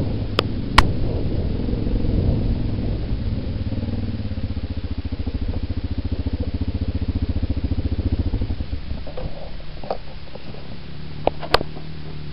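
Yamaha Big Bear ATV's single-cylinder engine running and dropping toward idle, its even firing pulses plain for a few seconds before it runs more quietly near the end. A few sharp clicks come near the start and again near the end.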